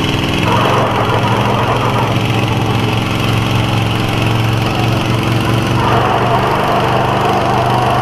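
Pickup truck engines running hard under load as two trucks pull against each other in a tug of war. The sound swells about half a second in and again around six seconds.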